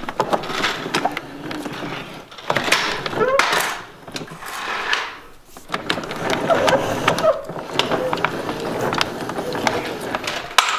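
Handling noise of plastic equipment being moved: rattling and scraping with many sharp clicks, swelling and falling unevenly.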